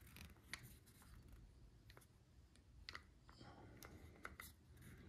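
Near silence, with a few faint clicks and scratches as a camo face-paint stick is dabbed and rubbed on bare skin and handled.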